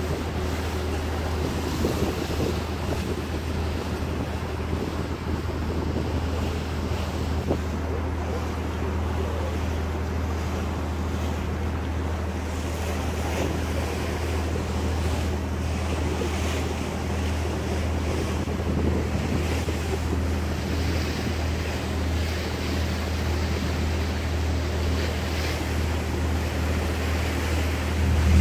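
Passenger boat's engine running with a steady low hum, over the rush of water along the hull and wind on the microphone.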